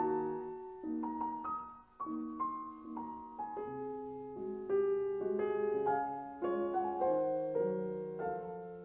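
Background piano music: single notes and chords struck every half second or so, ringing on and overlapping.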